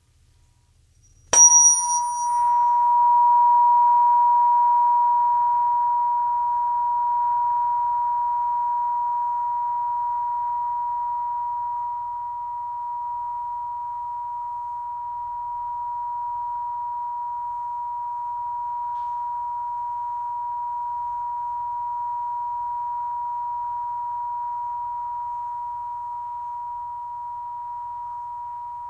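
A Solfeggio tuning fork, the 963 Hz fork, struck about a second in: a sharp metallic strike with a brief high ring, then one pure tone just below 1 kHz that rings on and slowly fades.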